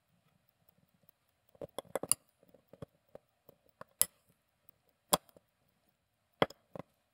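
Steel tweezers clicking and clinking against a watch movement's small steel keyless-works parts as they are fitted. There is a quick cluster of clicks about two seconds in, then four separate sharp clicks spread over the rest.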